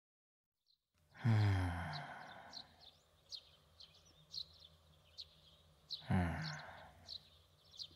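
Two low, voiced sighs, each falling in pitch and lasting under a second: one about a second in, the other about six seconds in. Small birds chirp throughout in the background.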